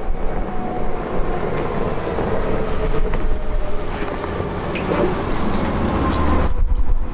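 Steady low rumble of a vehicle running, with faint steady tones over it.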